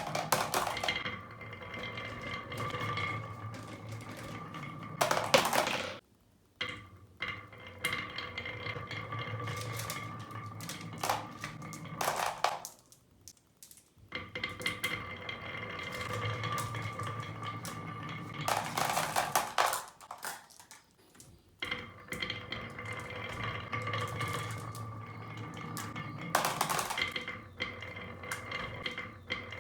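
Marbles rolling along a marble run track: a steady rolling sound carrying a faint ringing tone, with loud clacks every few seconds as marbles drop and strike the pieces. The rolling stops briefly three times, then starts again.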